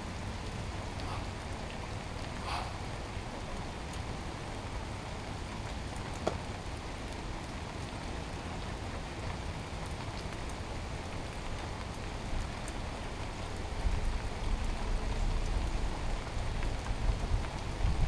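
Steady hiss of outdoor background noise, with a low rumble of wind on the microphone over the last few seconds.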